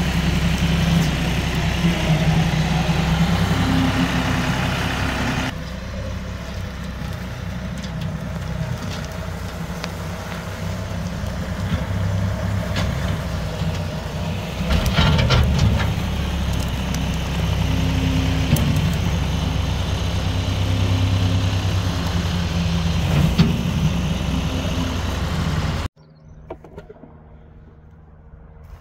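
Compact tractor's diesel engine running while its front loader works a pile of brush, with the engine note dropping a little about five and a half seconds in and a short louder clatter around fifteen seconds. Near the end the sound cuts away to a much quieter background.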